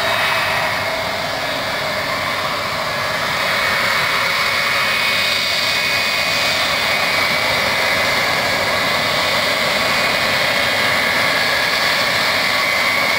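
Boeing 707-138B's four Pratt & Whitney JT3D turbofan engines running as the jet rolls along the runway: a steady jet roar with a high fan whine over it, growing a little louder about three and a half seconds in.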